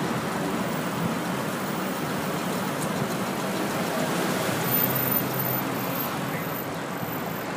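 Steady road and traffic noise heard from a moving car in city traffic.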